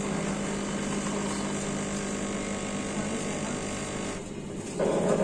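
WMF automatic coffee machine running as it pours espresso from twin spouts into a cup of frothed milk for a cappuccino: a steady mechanical hum. About four seconds in the hum drops away, and a louder, brief noise of a different kind follows near the end.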